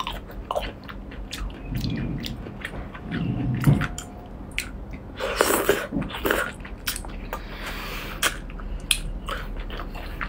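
Close-miked wet chewing and lip-smacking of braised octopus tentacle, with many small sharp mouth clicks. Two low hums come a couple of seconds in, and a loud sucking slurp about five seconds in as a tentacle is drawn into the mouth.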